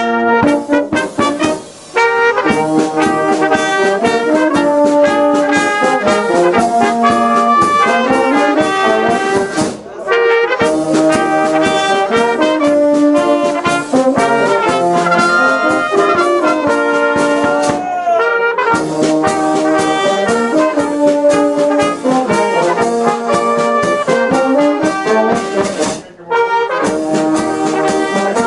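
Brass band playing a march: flugelhorns, trumpets and tenor and baritone horns over a steady beat with cymbals. The music breaks briefly between phrases about every eight seconds.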